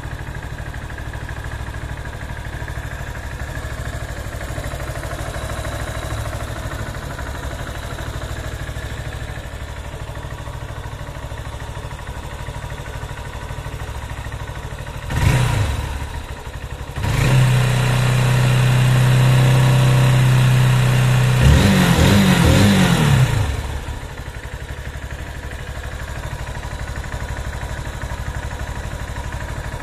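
Honda CB190R single-cylinder motorcycle engine idling on 20W50 synthetic oil mixed with Lucas oil stabilizer. About halfway through the throttle is blipped once, then the engine is held at higher revs for about four seconds before falling back to a steady idle.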